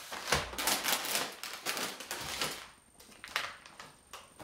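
Rapid crinkling and rustling of plastic and paper food packaging being handled, with light knocks of products set down on a table. The crackling is dense at first and thins to a few clicks about two and a half seconds in.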